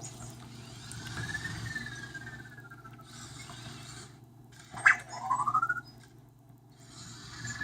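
Anki Vector robot making electronic chirps that glide up and down in pitch, with a sharp click about five seconds in, over the whir of its small motors.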